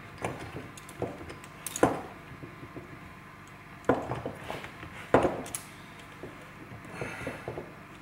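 Handling clicks and knocks of small parts as caps and fittings are worked by hand onto a pedal box's master cylinders, with three sharper knocks about two, four and five seconds in.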